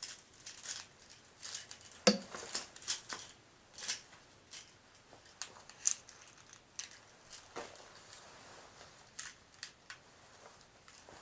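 Irregular light clicks, snips and rustles of a fluorescent ballast's lead wires and a rubber band being handled and sorted out by hand, with one sharper click about two seconds in.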